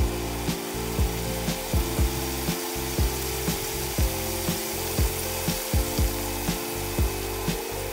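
Minced garlic sizzling in hot oil in a cast-iron skillet, a steady frying hiss. Background music with a steady beat plays over it and carries the loudest, regular peaks.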